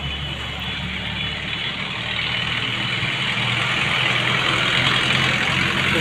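Steady running engine noise with a low hum, growing gently louder over the few seconds.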